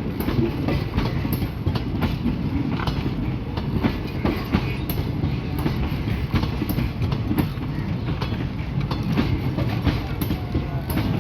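Passenger train rolling along the track: a steady rumble of wheels on rails with irregular clicking as they pass over rail joints.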